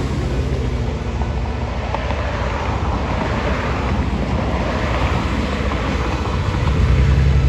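Road traffic with wind buffeting the microphone: passing cars make a steady noise, and a low engine rumble swells near the end.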